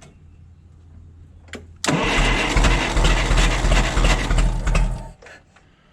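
Forklift engine cranked over on its starter for about three seconds, with a spark plug out and a compression gauge in the cylinder, for a compression test. The cranking starts about two seconds in and stops a little after five seconds.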